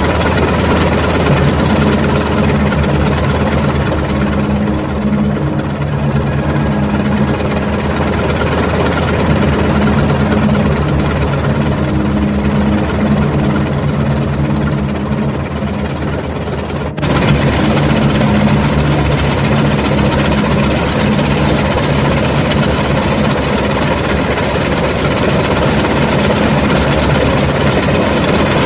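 Radial piston engines of propeller fighter planes running on the ground at idle and taxi, a steady pulsing rumble. The sound cuts abruptly to a slightly louder stretch about two-thirds of the way through.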